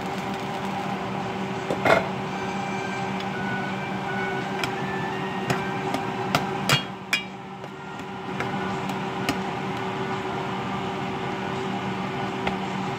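A metal spoon stirring ground pork and tomatoes in an enamel pot, clinking and scraping against the pot several times, with one loud knock about two seconds in. A steady hum runs underneath.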